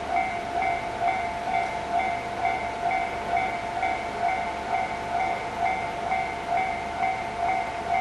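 Japanese railway level-crossing warning bell ringing in an even, repeating ding about twice a second. It signals that the crossing is closed for an approaching train.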